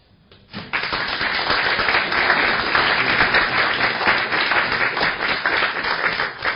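Audience applauding, breaking out suddenly under a second in and then holding steady.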